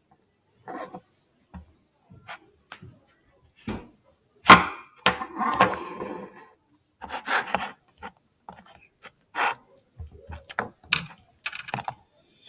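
Irregular knocks and clatter of a plastic rolling pin and a plastic food tub handled on a tabletop, with stretches of rubbing as fondant is rolled out on the tub's lid. The sharpest knock comes about four and a half seconds in.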